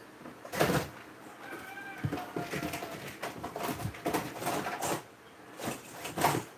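Rustling and knocking from objects and wires being handled at a workbench, in uneven bursts that are loudest about half a second in and again near the end. A short pitched sound is heard around two seconds in.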